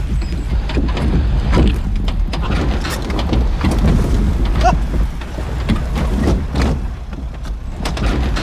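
Ford Bronco Badlands crawling in low range over a log-strewn course: a steady low engine rumble with irregular knocks and clatter as it works over the wood.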